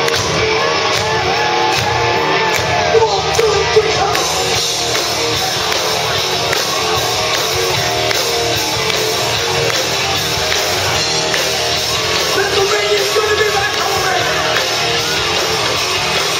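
Live rock band playing loud: drums and electric guitars.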